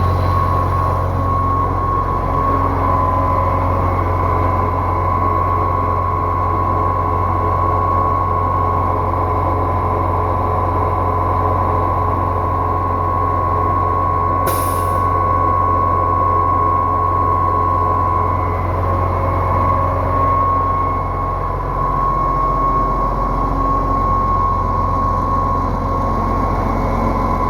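2006 Putzmeister 32Z concrete pump truck running steadily, with a deep engine drone and a constant high whine. A brief high hiss comes about halfway through.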